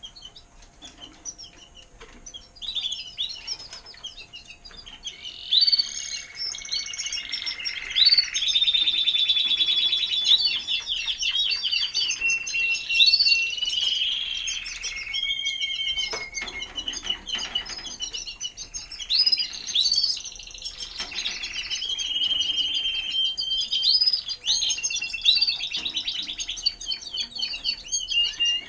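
Timbrado español canaries singing: long runs of rapid trilled notes mixed with held whistled tones. The song is soft for the first few seconds, then fuller and louder.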